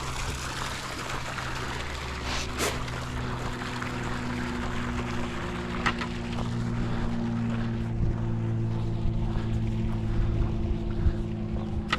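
A steady engine-like hum with a few light knocks and clicks.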